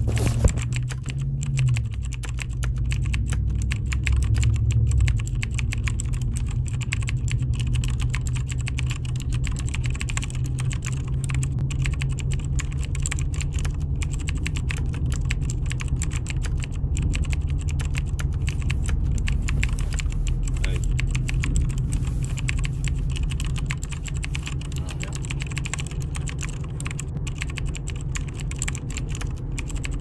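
Computer keyboard being typed on: rapid, irregular key clicks that continue without a break, over a steady low rumble.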